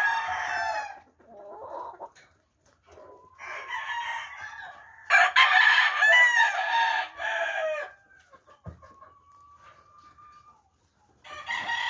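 Roosters crowing repeatedly, one crow after another, the longest and loudest about halfway through.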